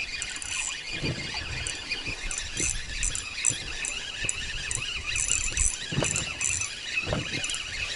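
Spinning reel being wound in while a hooked fish is played on the line, with a few soft knocks of handling in between.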